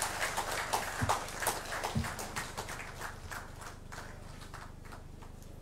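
Audience applauding, the clapping thinning out and fading away over the last couple of seconds.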